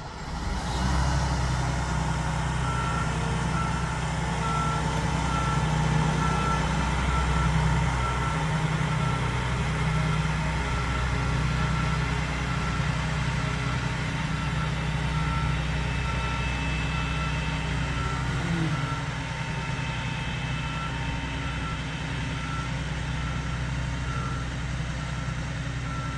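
Diesel engines of railway maintenance-of-way track machines running as they move off, with a steady drone and a high electronic warning beep repeating at an even pace from a couple of seconds in.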